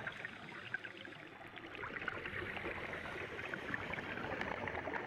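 Underwater ambience around scuba divers: a steady watery hiss full of faint crackles, a little louder in the second half.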